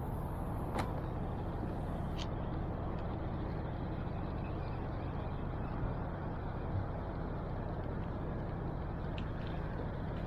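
Steady low rumbling background noise, with a few faint clicks: one about a second in, another about two seconds in, and one near the end.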